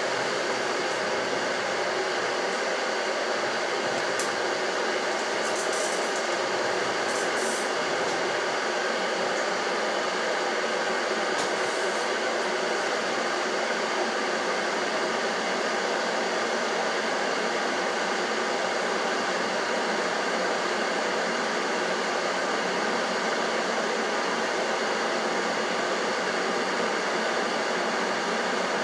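Blaupunkt EKG501BK glass electric kettle with water heating toward the boil: a steady, even bubbling noise. A few faint short ticks come in the first dozen seconds.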